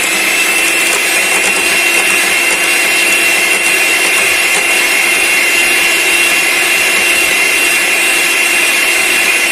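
Electric hand mixer running steadily, its beaters whipping cake batter in a bowl: an even motor whine.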